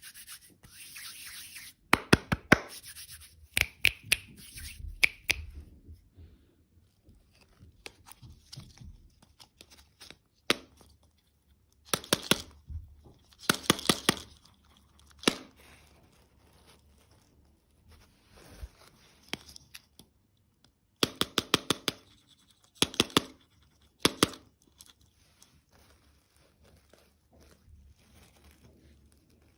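Close-miked crackling and crunching of candy and desserts in short bursts of sharp clicks, with quiet gaps between them.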